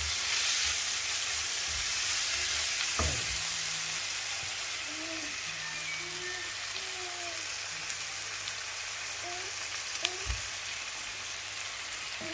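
Chopped onions frying in oil in a pan: a steady sizzle while they are stirred with a silicone spatula, with a couple of dull knocks, about three seconds in and again near ten seconds.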